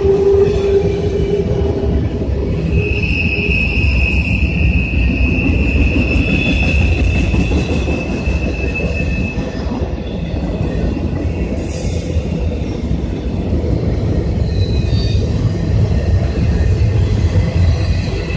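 Freight train cars rolling past with a steady low rumble, their steel wheels squealing against the rail. One long high squeal runs from about three seconds in to about nine and a half seconds, and shorter squeals come and go.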